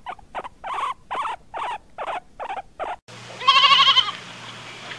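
Guinea pigs squeaking in a quick, even series of about eight short calls, followed about three and a half seconds in by a goat bleating once with a loud, quavering call.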